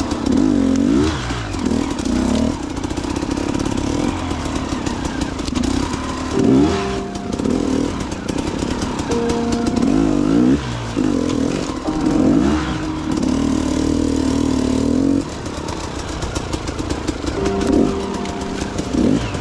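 Two-stroke enduro motorcycle engine, a KTM EXC 250, revving up and down as it is ridden off-road, its pitch rising and falling in repeated surges with short steadier stretches between.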